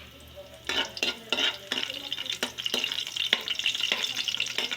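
Garlic going into hot cooking oil in a pan: sizzling starts about a second in and keeps going, with repeated scrapes of a spatula stirring it.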